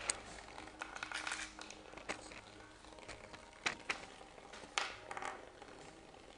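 Bristlebots, toothbrush heads shaken by small vibration motors, rattling and skittering across a wooden tabletop, with a few sharp taps scattered through.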